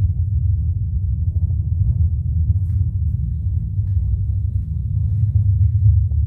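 Pioneer HTP-076 home theater system in DTS Neural:X mode playing a loud, steady deep bass rumble from a film soundtrack, the subwoofer carrying most of it.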